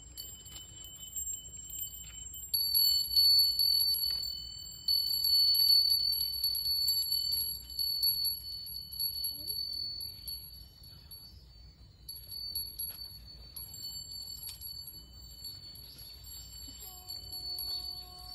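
Small metal chimes ringing, a rapid shimmer of light strikes over steady high tones, loudest from a few seconds in and fading somewhat in the middle before picking up again. Near the end a low held note with a wavering vibrato comes in.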